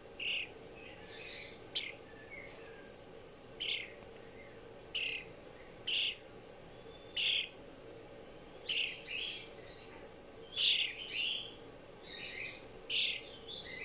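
A fledgling songbird calling with short, high chirps about once a second, turning into longer, closer-packed calls near the end.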